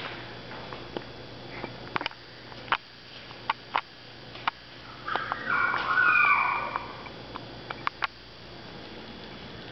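Puppy moving about with scattered sharp clicks and taps. Midway there is a high-pitched whine lasting about a second and a half.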